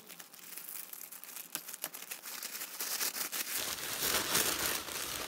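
Tissue paper rustling and crinkling as hands unfold it, a dense run of small crackles that grows louder about four seconds in.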